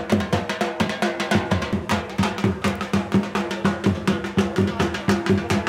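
Dhol drums beaten in a fast, steady rhythm, with a steady held note underneath.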